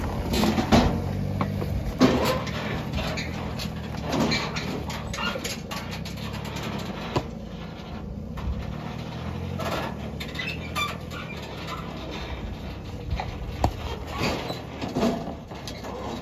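Chevy Colorado pickup's engine running steadily under load at crawling speed while towing a loaded car-hauler trailer up rock ledges. Scattered clicks and knocks from tyres and trailer working over the rock.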